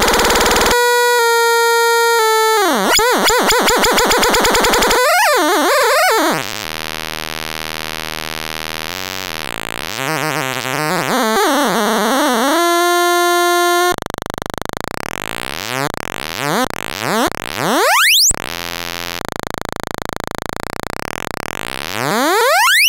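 VCV Rack VCO-1 software oscillator, a buzzy tone rich in overtones, its frequency modulated by a pattern from an XY pad and LFOs. The pitch jumps between steady notes, wobbles up and down in places, and in the last third sweeps upward again and again.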